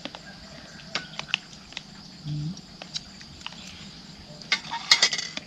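Insects chirring steadily in the background, with scattered light clicks and a brief cluster of sharp clicks and clatter near the end.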